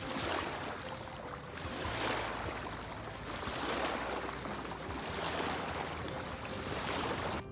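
Small wake waves washing up onto a gravelly riverbank, each one a swelling rush of water that fades again, five times, just under two seconds apart.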